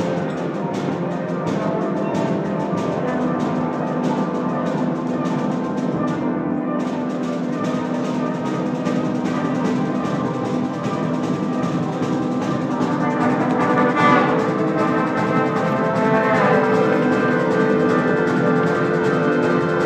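A school wind band with brass, percussion and piano playing, with a steady percussion pulse under sustained chords. About two thirds through there is a brief loud swell, followed by falling pitch glides.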